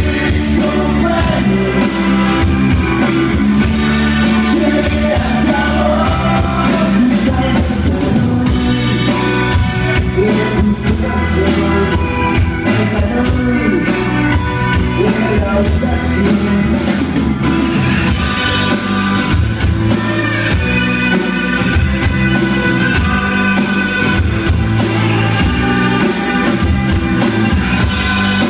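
A live rock band playing a song: a man sings lead over strummed acoustic guitar, electric guitar, bass guitar and a drum kit.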